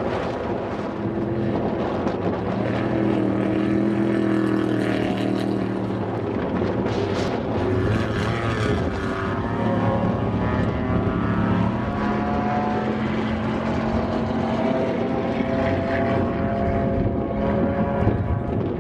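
Trophy truck engines running hard as the race trucks speed past on a dirt desert course. The engine pitch climbs again and again, and one truck passes close about ten seconds in.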